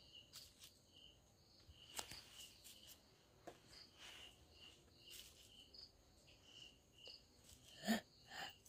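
Near silence with faint insect chirping: short high chirps repeating about twice a second, with a few faint clicks. A brief breathy voice sound near the end.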